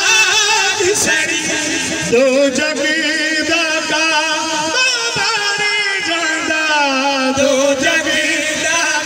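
Male noha khwan singing a Punjabi noha, a mourning lament, into a microphone, with long held notes that waver and glide in pitch.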